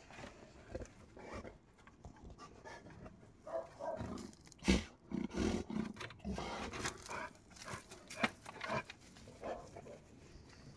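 A large dog, a cane corso–bullmastiff cross, sniffing and scrabbling among plants and rubble by a fence: irregular rustles and short knocks with breathy dog sounds, the loudest knock a little under halfway through.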